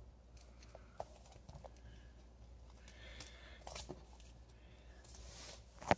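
Faint rustling and light taps of comic books being handled and laid out, a few scattered knocks, the sharpest one near the end.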